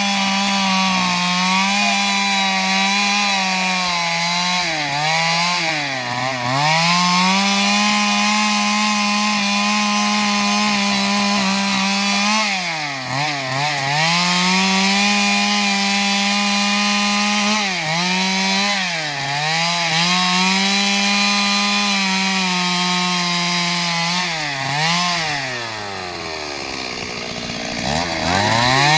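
Two-stroke Stihl MS 382 chainsaw cutting wood, its engine held at high revs. The engine pitch dips and recovers several times. Near the end it falls to a low idle for a couple of seconds, then revs back up.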